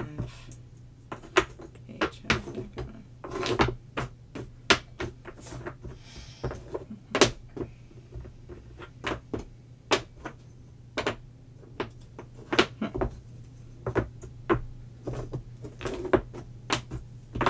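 Chunky wooden jigsaw puzzle pieces clicking and knocking against each other and the tabletop as they are picked up and fitted together, in irregular sharp taps two or three a second.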